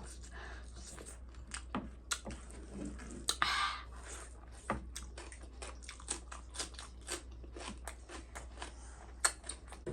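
Close-up chewing and biting of food, with many short crisp crunches and a louder, longer noise about three and a half seconds in.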